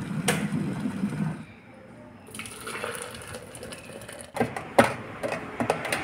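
Glass electric kettle boiling with a low rumble that stops about a second and a half in. A hiss of water being poured follows. Near the end a metal spoon clinks several times against the stainless steel French press as the coffee is stirred.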